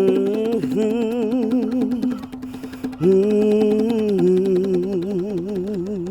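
Slow, mournful music: long held notes with a wide, even vibrato over a steady low drone, with a new note entering sharply about halfway through.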